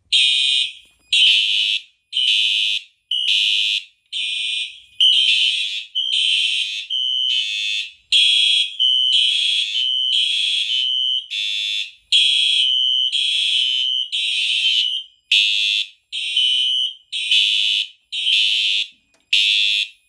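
Fire alarm horn strobes sounding in alarm, set off by a manual pull station. The horns give loud blasts roughly once a second, unevenly spaced, as if several horns are slightly out of step.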